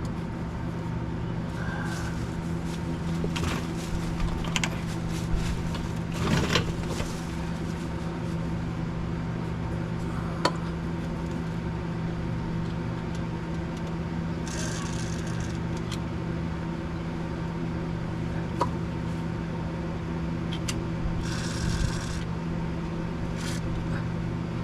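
Scattered clicks and scrapes of hand tools working on the rear-axle bolts under the car, over a steady mechanical hum. Two short hissing bursts come about midway and near the end.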